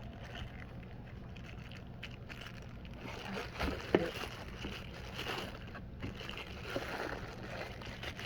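Rustling and handling noises as magnet-fishing gear is worked by hand, with a sharp click about four seconds in, over a steady low hum.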